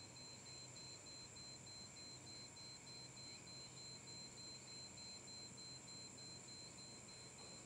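Near silence: faint room tone with a thin, steady high-pitched whine.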